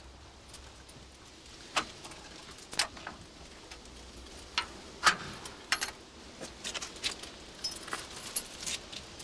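Keys jangling and clicking in the lock of a heavy riveted door, as a key is worked to unlock it: a string of irregular metallic clicks and clinks with a few short bright rings, the loudest about five seconds in.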